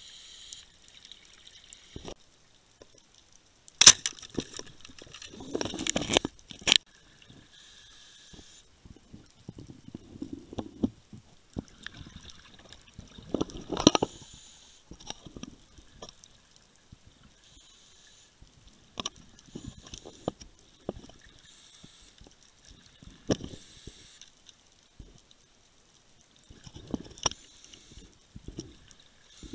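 Scuba diver breathing through a regulator underwater: a hiss on each breath in and a gurgling rush of exhaled bubbles, repeating about every four to five seconds.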